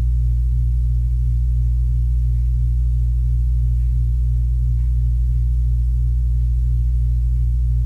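A loud, steady low hum that does not change.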